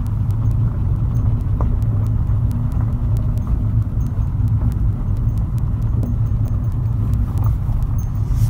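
Steady, deep rumble of a car driving along, heard from inside the cabin: road and engine noise.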